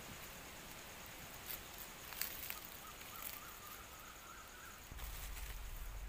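Faint woodland ambience with a steady high hum, a few light clicks and rustles as hands work the snare's cord and sticks. A faint warbling call comes in about halfway, and a low rumble starts near the end.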